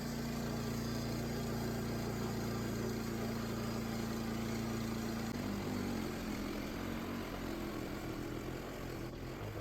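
Small engine of a DIY sawmill running steadily while a log is milled. Its pitch shifts and turns uneven about five seconds in.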